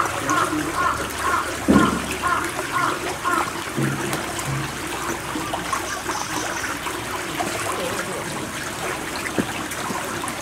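Water trickling and running steadily through a shallow pool. For the first few seconds a rapid series of short, even chirps, about three a second, sounds over it, then stops.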